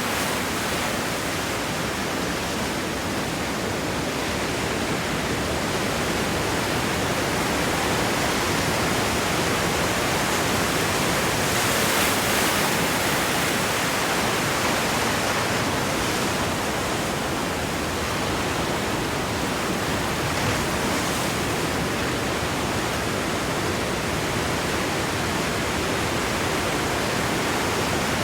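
Ocean surf washing over rocks at the shore, a continuous rushing wash of water with one fuller swell about halfway through.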